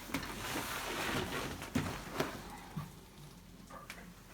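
Rustling as a patient settles face down on a padded chiropractic table, with two sharp clicks a little under two seconds in and a fainter one shortly after, before it goes quieter.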